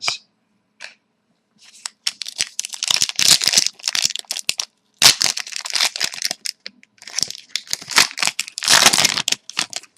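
Trading card pack wrapper crinkling and tearing in repeated scratchy bursts as a pack of hockey cards is handled and opened, starting about two seconds in.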